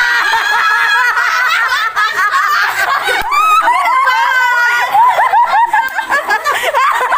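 High-pitched laughing, giggling and snickering that runs on without a break.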